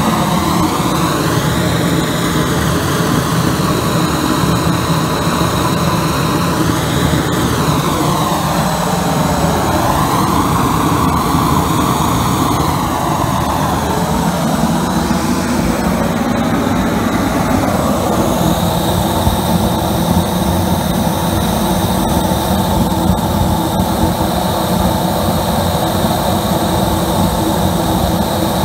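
Homemade compressed-air burner firing an open flame, a loud steady rush of air and combustion with the small air compressor that feeds it running underneath. The tone swishes slowly up and down through the first half, then holds steadier.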